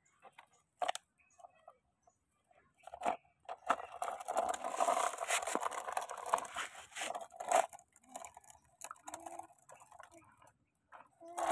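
A hollow clay brick scraping and grating against the plastic bed of a toy dump truck. A few light knocks come first, then about four seconds of dense gritty scraping in the middle, then scattered small clicks.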